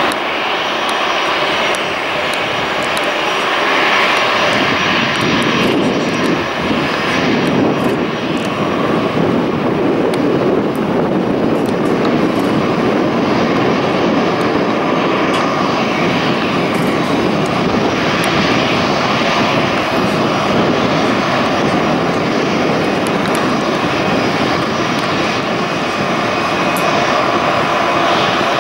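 Airbus A380-800's four jet engines at takeoff thrust, a loud, steady rumbling roar as the aircraft lifts off and climbs away.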